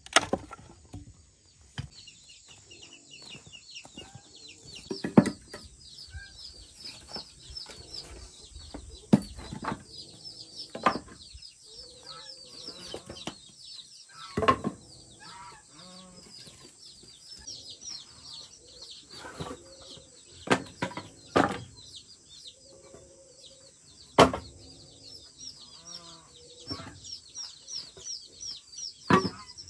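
Chickens clucking, over a dense run of high chirps, with loud sharp knocks every few seconds, about eight in all.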